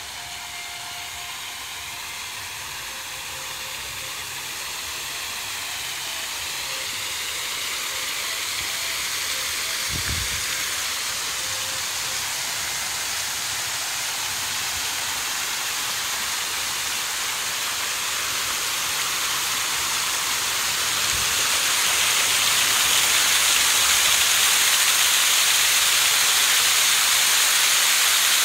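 Fountain water falling in many bell-shaped sheets from an overhead frame and splashing onto a shallow paved pool: a steady hiss of spray that grows louder throughout and is loudest over the last third. A brief low thump about ten seconds in.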